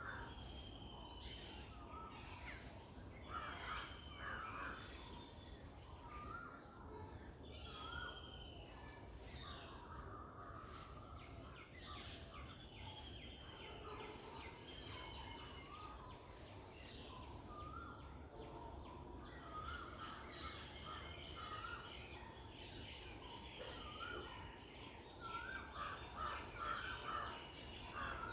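Several birds calling: short whistled notes repeated throughout, with bursts of harsh chattering calls a few seconds in and again near the end.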